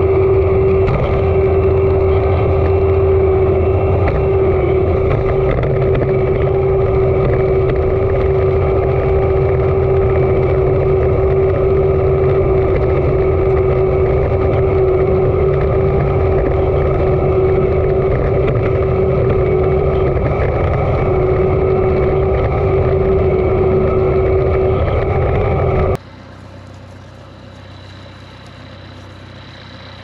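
John Deere self-propelled swather running steadily in the field, a constant machinery drone with a steady hum riding over it. Near the end the sound drops suddenly to a much quieter level.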